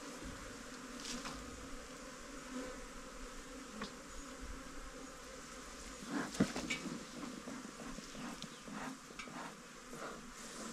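Bees buzzing steadily, with a run of knocks and clicks starting about six seconds in, one sharp knock the loudest.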